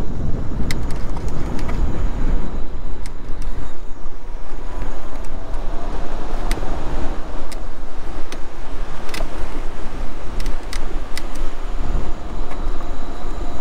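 Wind rushing and buffeting over the microphone while moving along a paved path, a loud, uneven rumble with sharp clicks now and then.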